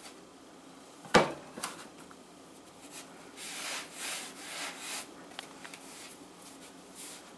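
Yeast bread dough being punched down and kneaded by hand on a countertop to work the air out. A sharp thump about a second in, then soft rubbing of the dough under the hands around the middle.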